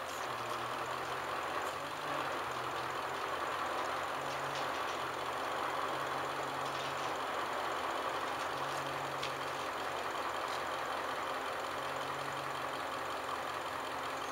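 Engine idling steadily, with a low hum that swells and fades every second or two.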